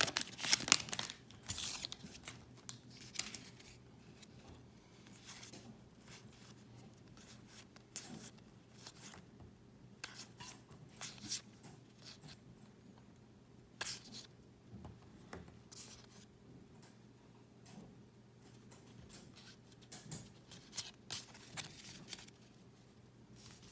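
Pokémon trading cards and booster-pack wrappers being handled: scattered short rustles, slides and clicks, with a faint steady hum underneath.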